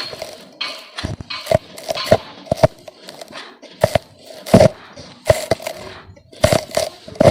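Lumps of red dirt being smashed and crumbled, giving a run of irregular sharp crunches and cracks with gritty crumbling in between.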